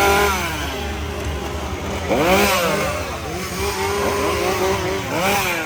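Several chainsaws revving up and falling back again and again, the revs overlapping, over a steady low engine drone.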